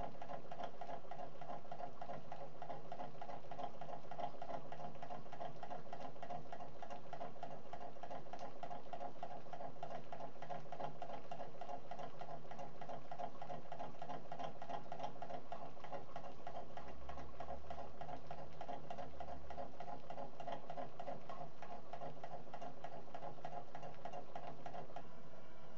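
Homemade model Stirling engine running over a flame, giving a steady, fast, light pattering and ticking with no change in pace.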